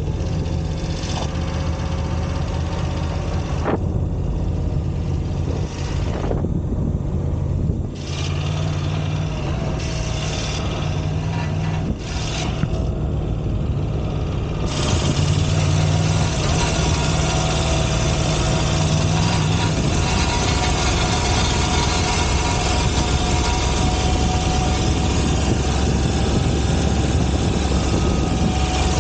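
Moto Guzzi V85 TT's air-cooled transverse V-twin running steadily, with a harsh metallic buzz from a half-loose exhaust header cover whose bolt has worked loose, vibrating against the pipe. About halfway through, the harsh noise fills in fully and holds.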